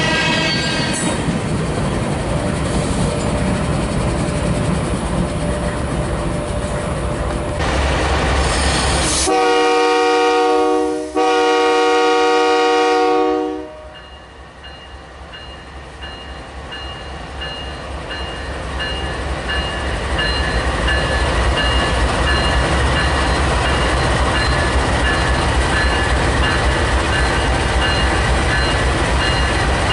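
Freight tank cars rolling past with a steady rumble and clatter of wheels over the rail joints. About nine seconds in, a nearby diesel locomotive's chord horn sounds two loud blasts back to back, about four seconds in all. After a brief lull, a low rumble builds and holds as the locomotive starts to move.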